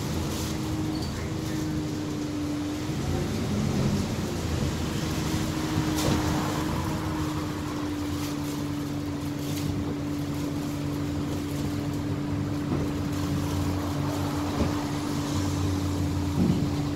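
Alexander Dennis Enviro400H hybrid double-decker bus heard from inside while under way. Its drivetrain gives a steady hum with a held whine that drops slightly in pitch about three seconds in and then stays level, over road noise and a few light rattles.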